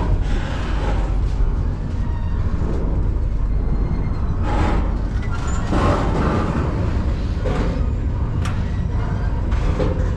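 Freight train rolling, heard from on board: a steady low rumble with several louder surges of noise.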